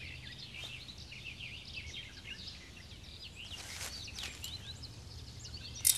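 Outdoor ambience of many small birds twittering with quick, short chirps over a low steady hum, with one short sharp click near the end.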